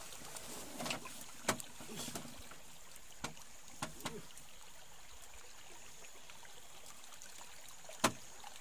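Quiet background with a steady faint high hum, broken by a few sharp clicks and knocks, the loudest near the end, and brief faint voices.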